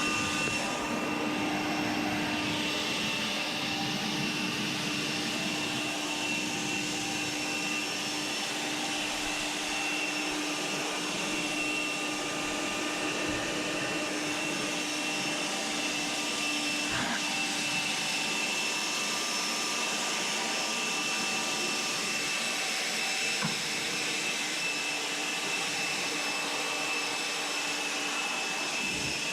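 Electric air blower running steadily, blowing water off a freshly pressure-washed engine bay: an even rushing hiss with a steady motor whine.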